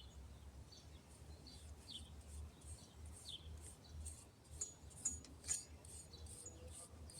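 Faint scrapes and taps of a palette knife working wet cement patch onto a concrete fountain bowl, with a few short bird chirps in the background.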